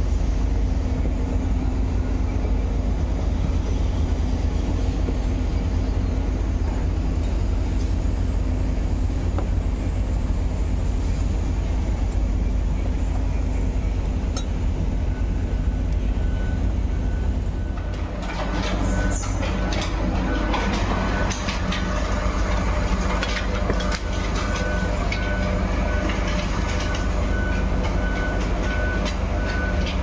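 A large engine running steadily with a constant low drone. A little past the middle, metallic clicks and taps of spanner work on the pump's hydraulic fittings come in over it, along with a faint steady high tone.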